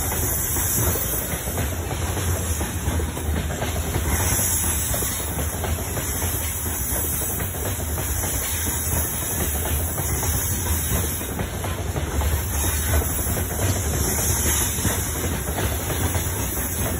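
Covered hopper wagons of a freight train rolling past: a steady low rumble of steel wheels on the rails with repeated clacking as the wheels cross rail joints.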